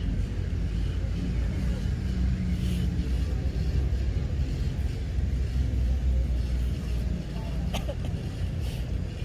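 An engine running steadily: a low rumble with a droning hum. A single sharp click comes about eight seconds in.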